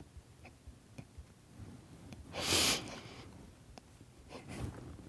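A man's short, noisy intake of breath about halfway through, close on a lapel microphone, with a fainter breath near the end and a few faint ticks in a quiet room.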